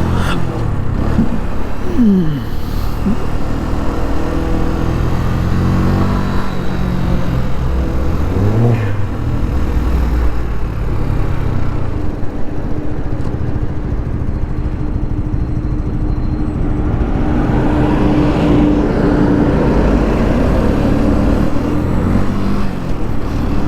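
Keeway Superlight 125cc motorcycle engine running while ridden through town traffic. Its pitch rises and falls several times in the first ten seconds, then holds steady for several seconds in the middle.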